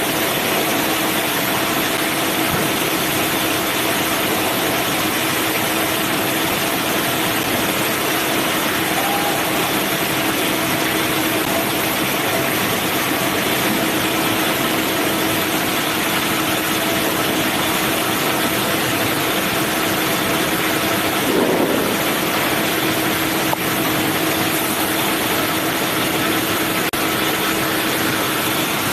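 Manual band sawmill running steadily, with a constant mechanical hum over a wide, even noise. A brief louder sound comes about 21 seconds in.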